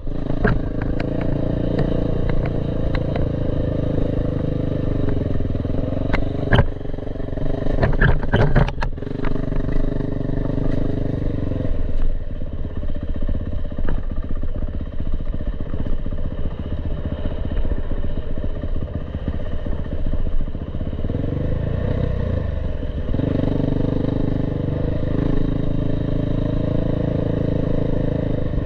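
Dirt bike engine running close up while riding a rough gravel trail, with several sharp knocks and rattles from bumps and stones under the wheels. For a stretch in the middle the engine drops to a lower, pulsing note off the throttle, then picks up again.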